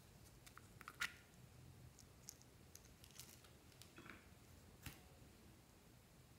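Near silence broken by a few faint, sharp clicks and taps, the loudest about a second in and another just before five seconds: small plastic toy stamps being handled.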